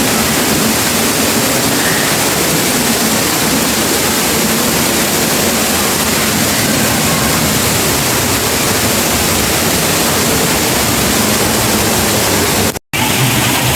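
Steady, loud rush of falling water, with a sudden brief break about a second before the end.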